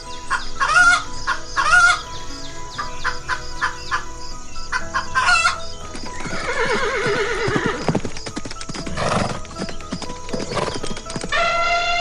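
A string of separate animal calls, among them a long wavering call that falls in pitch midway and a long held call starting near the end, over background music.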